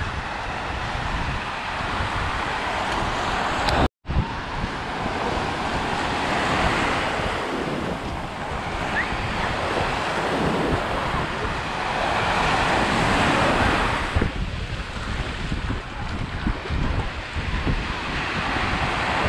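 Small ocean waves breaking and washing up the sand at the shoreline, the surf swelling louder and easing off a few times, with wind buffeting the microphone. The sound cuts out for a split second about four seconds in.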